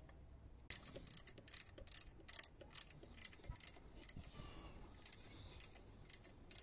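A ratcheting screwdriver clicking in an even rhythm, about two or three clicks a second, while it tightens a front derailleur's clamp bolt. There is a short pause just after the middle, then a few more clicks.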